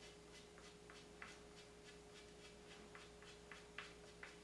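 Near silence with faint ticking, fairly regular clicks about three a second, over a steady low hum.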